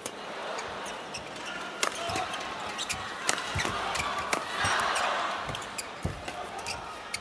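Badminton rackets striking a shuttlecock in a fast doubles rally: sharp, irregularly spaced hits over the noise of an indoor hall, with the crowd noise swelling about halfway through.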